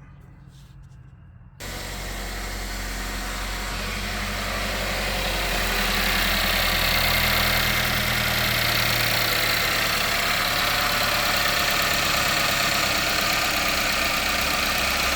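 2013 Chevy Equinox's 2.4L Ecotec four-cylinder engine idling, a steady, solid idle with freshly replaced variable valve timing solenoids. It comes in suddenly about a second and a half in, after a low hum, grows a little louder over the next few seconds, then holds even.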